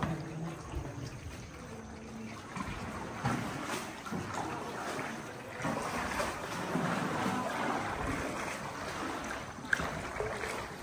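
Water lapping and trickling around a canoe as it is paddled, with paddle splashes now and then and one light knock near the end.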